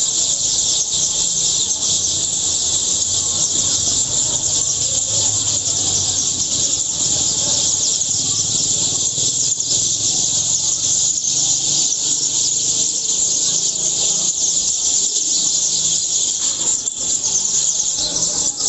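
A flock of many small birds chirping at once, a dense, continuous high-pitched twittering chorus.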